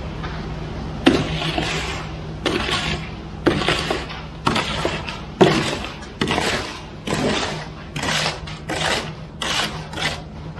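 Wet concrete coming down a ready-mix truck's chute in surges, a scraping, sliding rush about once a second, over the steady hum of the truck.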